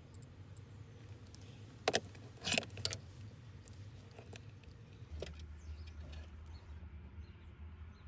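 A couple of faint high electronic beeps from a Sequre MSS12 soldering controller as its knob is turned, then a few sharp clicks and knocks of tools and plastic being handled, loudest about two seconds in. Light ticking and handling follow over a low hum.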